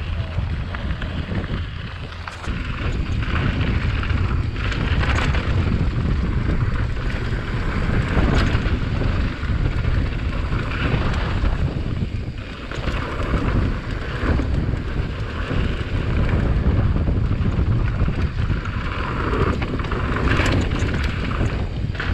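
Wind rushing over a camera microphone on a mountain bike descending a gravel and dirt trail, with the tyres crunching and the bike rattling over bumps. The noise gets louder about two and a half seconds in as speed picks up.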